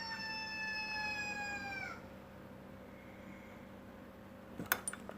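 A long, drawn-out animal call, held for about three seconds while its pitch sinks slowly, then dropping sharply as it ends about two seconds in. A few sharp clicks follow near the end.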